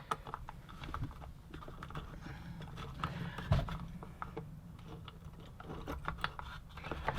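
Light, scattered clicks and taps of small strimmer carburetor parts being handled and fitted by hand, with one louder knock about halfway through.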